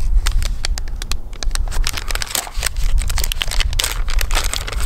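Plastic soft-bait bag crinkling in the hands as it is handled and its resealable top is peeled open, a rapid run of small crackles over a steady low rumble.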